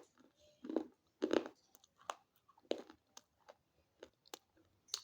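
Close-up crunching and chewing of a hard slate pencil stick: sharp, irregular crunches several times, the loudest a little over a second in.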